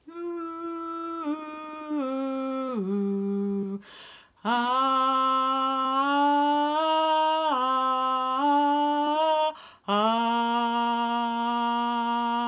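A woman singing long held notes without words, moving from pitch to pitch in slow steps, with short breaks for breath about four seconds in and near ten seconds in.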